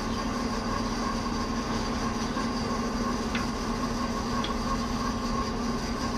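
Electric wood lathe running steadily with a long wooden workpiece, its motor giving a constant hum and a higher steady whine. Two faint ticks come in the middle.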